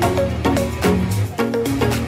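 Background music: a quick, even run of struck or plucked notes over a steady bass line.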